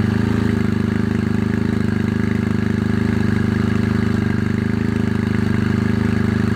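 Suzuki Burgman 650's parallel-twin engine, freshly started, idling steadily through an aftermarket Arrow exhaust silencer.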